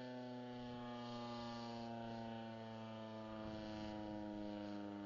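Outdoor warning siren sounding a steady tone that slowly falls in pitch as it winds down at the end of a test.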